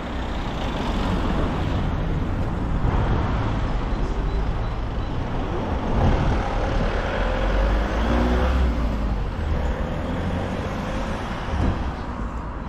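Road traffic passing close: cars and a delivery van drive by over a steady low rumble, with an engine note loudest in the middle as the van goes past.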